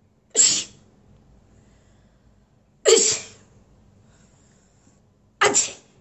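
A woman sneezing three times, about two and a half seconds apart, each sneeze short and sudden. They are deliberately forced, artificial sneezes rather than natural ones.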